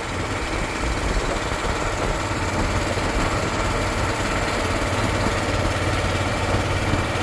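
Boat engine running steadily, heard from on board.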